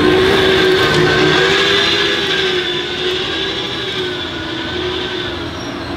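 Ford SuperVan 4's electric drive whining as the van rolls slowly past, a steady whine of several tones at once that eases off a little in the second half.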